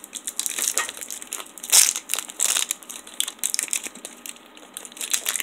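Plastic-foil snack-bar wrapper crinkling and crackling in the hands as it is peeled off a sticky fruit bar and crumpled, in irregular crackles with a louder crunch about two seconds in.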